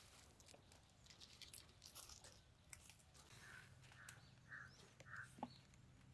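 Near silence: quiet outdoor background with faint scattered ticks and four soft short notes evenly spaced around the middle.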